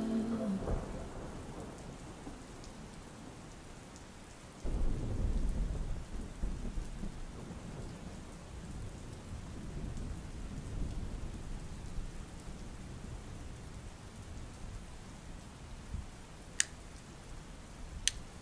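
Steady rain with a roll of thunder that breaks in suddenly about five seconds in and rumbles away over several seconds. Two sharp clicks near the end.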